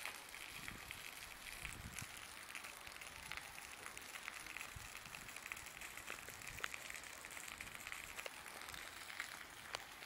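Steady rain falling on wet asphalt and puddles: a constant faint hiss dotted with many small drop ticks.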